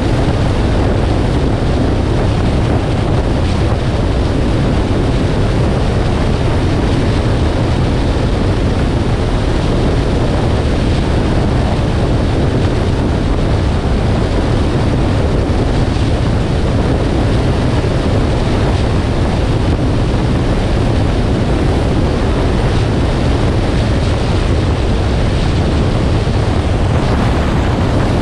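Steady road and wind noise from a 2018 Nissan Armada driving along: an even low rumble with a hiss of rushing air over it, unchanging throughout.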